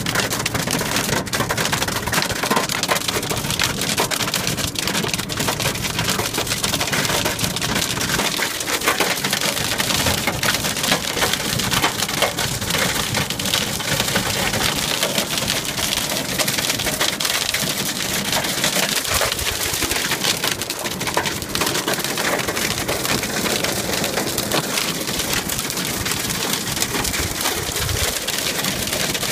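Hail drumming on a car's roof and windows, heard from inside the cabin: a dense, unbroken patter of countless small hard impacts.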